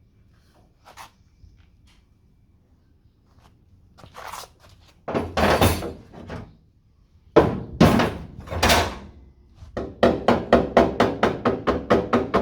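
Steel rear quarter panel of a Mk2 Ford Escort being tapped with a panel-beating stick to work out a dent. First come a few scattered heavier knocks, then about ten seconds in a quick, even run of light taps, roughly six a second.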